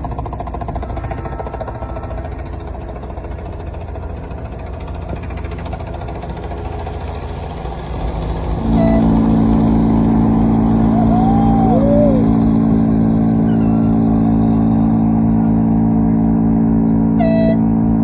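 Ship's horn giving one long, steady, deep blast that starts about halfway through, after several seconds of low rumble.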